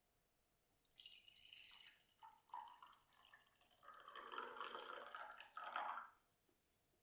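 Coffee pouring from a glass French press into a ceramic mug. The stream starts about a second in, runs fullest in the middle, then thins to drips and stops near the end.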